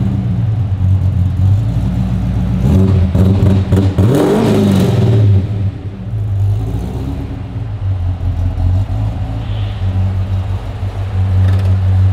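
Holden HQ's 253 V8 running at idle while warming up, revved once about three seconds in, the pitch rising and falling back before it settles to a steady idle again.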